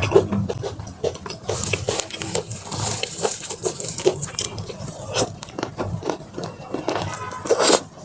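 Close-miked eating sounds: biting into and chewing crispy Korean fried chicken drumsticks, with many irregular crunches and crackles, the loudest near the end.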